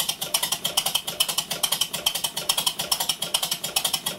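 Miniature steam locomotive chassis running on compressed air with its wheels spinning free, giving rapid, even exhaust beats from the cylinders at about seven a second.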